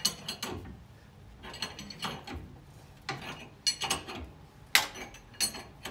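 Ratchet wrench clicking in uneven strokes as it turns the 22 mm forcing bolt of a C-clamp ball joint press, pushing the old ball joint out through the control arm. One sharper metallic click stands out about three-quarters of the way through.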